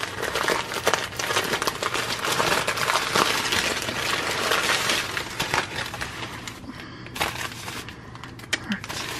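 Layers of white packing paper being unwrapped and crumpled by hand: a dense, crackly rustling that eases off a little over the last couple of seconds.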